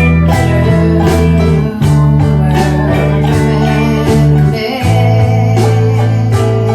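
Band music with guitar over a strong bass line and a steady drum beat.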